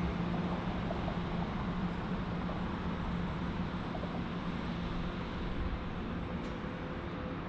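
Jet noise from a Bombardier CRJ-900 regional jet's two rear-mounted GE CF34 turbofans at takeoff thrust as it climbs away: a steady rushing roar with a low hum, easing slightly near the end.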